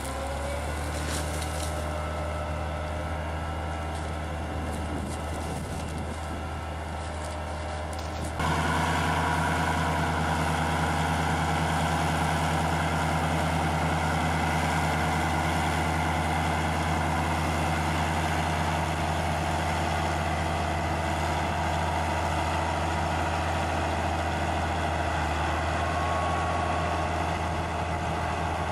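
Large tractor engine running steadily, jumping abruptly louder about eight seconds in.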